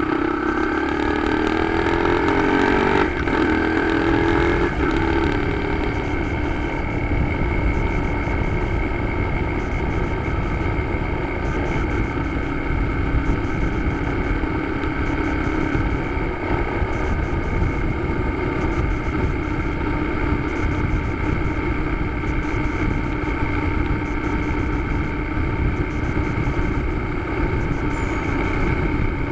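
Motorcycle engine heard from the bike's own camera. The engine note rises as it accelerates for about three seconds, breaks sharply at a gear change, then holds a steady note while cruising.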